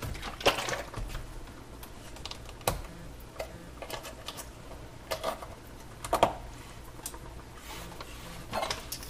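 A handful of light, irregular clicks and taps from kitchen containers being handled at the stove, spaced a second or more apart.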